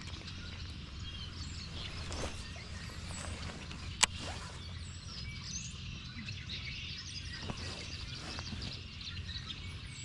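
Many small birds chirping and calling over a steady low rumble, with one sharp click about four seconds in.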